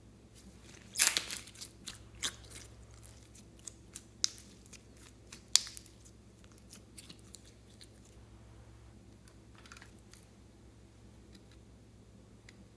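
Slime being squished and mixed by hand, giving crackling, popping clicks: a dense burst about a second in, a sharp pop near the middle, then scattered fainter clicks.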